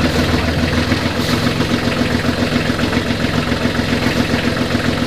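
Volvo Penta marine diesel engine running with an even, rapid throb, steady in rpm: the running is back to normal now that water has been drained from the fuel filters and air bled out of the fuel system.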